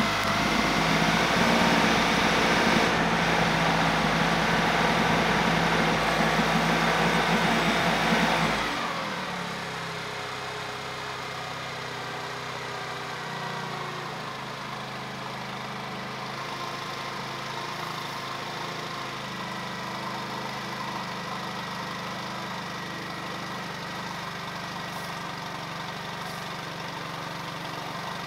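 Yamaha 9.9 hp four-stroke outboard running in a water test barrel after repair. It runs loud and fast at first, then is throttled down about nine seconds in and settles to a steady idle.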